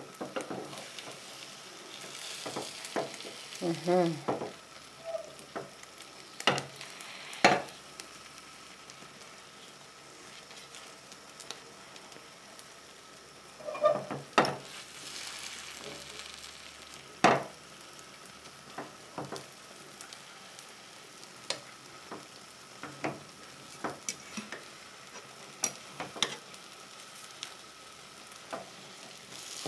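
Omelette of egg, tomatoes and fried potatoes sizzling quietly in a nonstick frying pan. A fork scrapes and taps against the pan now and then as the edges are lifted to let the egg spread, giving scattered sharp clicks.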